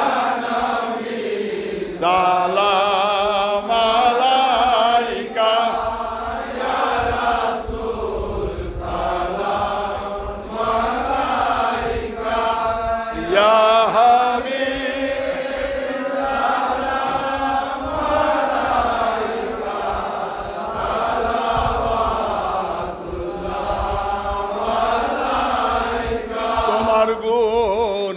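Bengali devotional song praising the Prophet Muhammad, sung through a microphone in long, drawn-out melodic lines with a wavering pitch, as a chant for the standing salutation of a milad.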